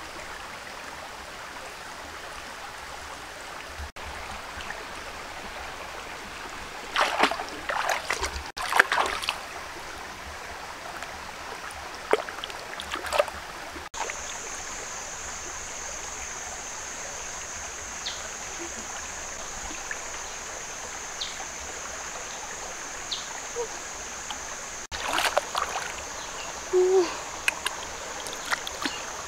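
A shallow stream runs steadily over stones. Hands splash and scoop in the water in several short bursts, the last a few seconds before the end. About halfway through, a steady high-pitched tone begins and holds.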